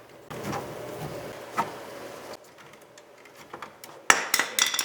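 Plastic power window switch being pried out of its door-panel mount with flat-blade screwdrivers: scraping and creaking for about two seconds, then a quick burst of sharp clicks and clatter near the end as the switch's retaining tabs let go.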